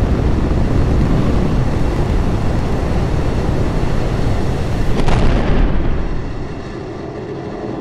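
Space Shuttle rocket exhaust during ascent: a loud, steady, deep rumble. About five seconds in there is a sharp burst, after which the deep rumble fades and the sound thins out.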